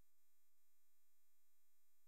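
Near silence, with only a very faint steady tone.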